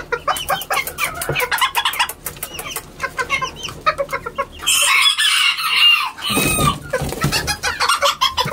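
Roosters clucking in a run of short, sharp calls, with one longer, louder crow about five seconds in that lasts a second and a half.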